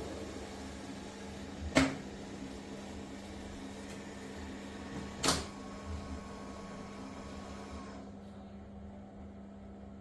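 Dreame robot vacuum running with a steady hum, broken by two sharp clicks a few seconds apart. About eight seconds in, its higher whirring drops away and leaves a lower hum.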